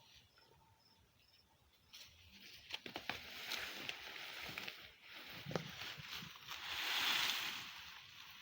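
Dry maize stalks and leaves rustling and crackling as they are handled, starting about two seconds in with many small crackles and swelling to a louder rustle near the end.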